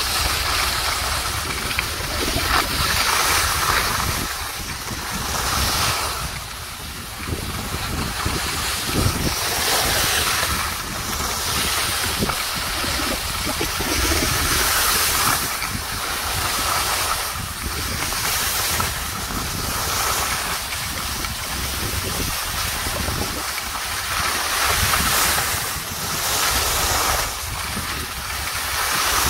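Wind buffeting the microphone of a camera carried by a moving skier, with skis hissing and scraping over the snow in swells that rise and fall every few seconds as the turns come.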